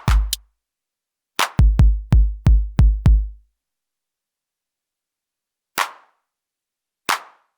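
Elektron Syntakt drum machine playing synthesized drum hits: a quick run of about six deep kick drums, each with a sharp click on the attack, then a pause and two single short noisy hits.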